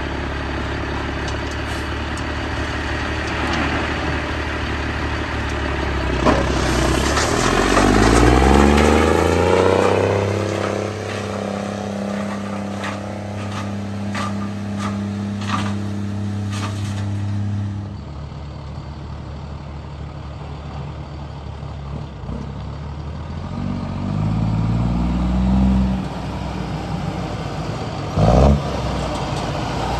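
Heavy-equipment diesel engine running under load. It revs up about seven seconds in and holds high revs with clattering for several seconds, then drops back. It revs briefly again later, and there is a short knock near the end.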